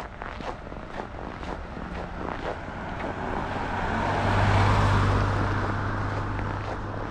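A car passes on the road, its tyre and engine noise building to a peak about halfway through and then fading. Walking footsteps keep going at about two steps a second.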